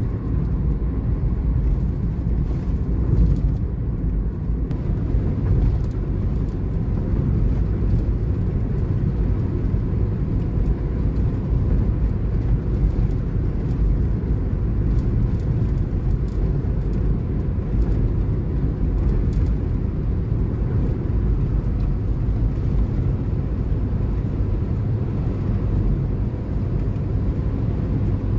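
Steady low rumble of tyres and engine inside the cabin of a car cruising on a concrete-surfaced toll road.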